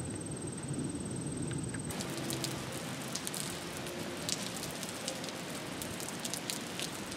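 Rain falling on wet pavement, many drops spattering and ticking, from about two seconds in. Before that, outdoor background with a steady high-pitched whine.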